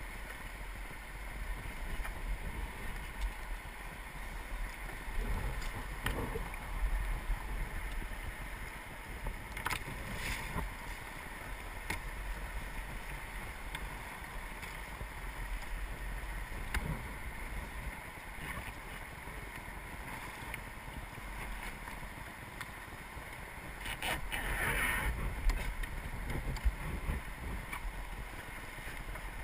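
River water rushing and splashing around a kayak, with wind rumbling on the microphone and a few sharp knocks. A louder splash comes near the end.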